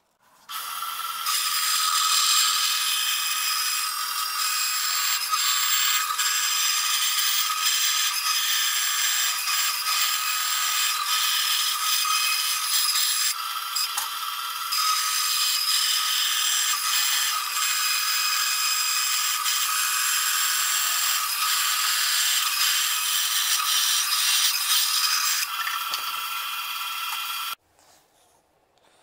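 Band saw running and cutting through a sheet of board: a steady, high-pitched blade noise with a short dip about halfway, cutting off suddenly near the end.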